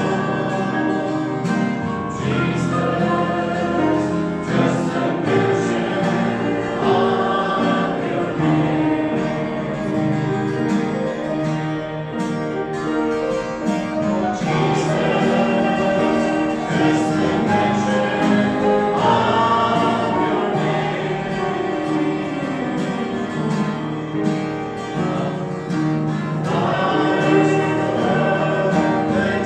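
Church congregation singing a gospel hymn together, voices held on long sung notes.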